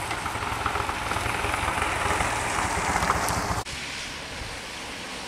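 Outdoor road noise: wind buffeting the microphone over the sound of nearby vehicles. About three and a half seconds in it cuts abruptly to a quieter steady hiss.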